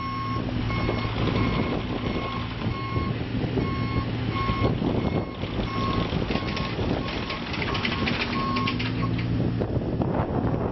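Bobcat E35 mini excavator's diesel engine running as the machine tracks and turns, with its motion alarm beeping in an even series that stops about nine seconds in.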